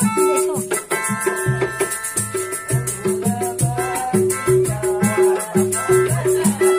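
A busker's melodica playing a melody of held notes over a steady, fast percussion beat with a shaker-like rattle.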